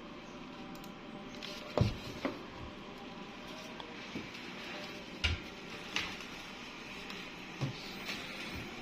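CNC cutting machine running on 4 mm plywood: a steady hum, with about six sharp clicks or knocks at uneven intervals.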